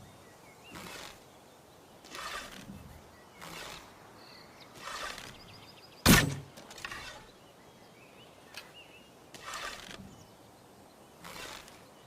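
Bow-and-arrow sound effect: a string of short swishes, one every second or two, with one sharp, loud impact about six seconds in.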